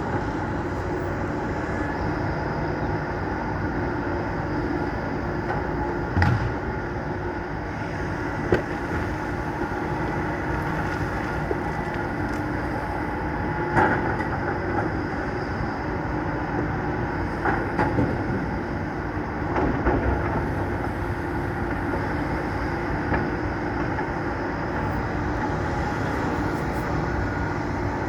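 Tracked hydraulic excavators' diesel engines running steadily, with a few sharp knocks and clunks as rock armour is handled and set down on the beach.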